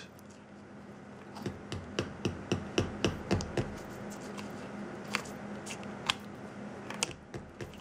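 Sharp electronic clicks, about four a second at first and then more scattered, over a steady low hum: the Powermat wireless charger's transmitter pinging while it searches for a device, picked up by a homemade wire-loop antenna and played through an amplifier.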